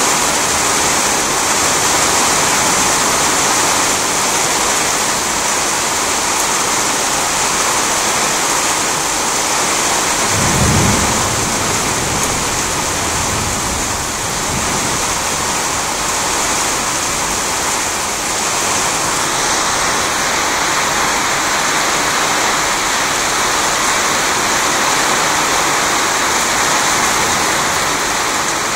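Heavy rain falling steadily in a thunderstorm, recorded on a cellphone. About ten seconds in, a low roll of thunder rumbles under the rain for three or four seconds.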